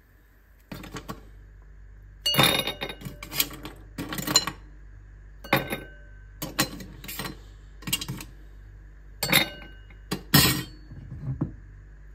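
Ice cubes clinking against glass as metal tongs lift them from a glass bowl and drop them into a wine glass: a string of sharp, irregular clinks and clatters.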